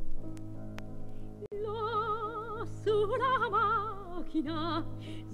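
Old opera recording playing from a vinyl LP: an operatic voice sings with wide vibrato over sustained orchestral accompaniment. The voice comes in about a second and a half in, with a few small record clicks early on.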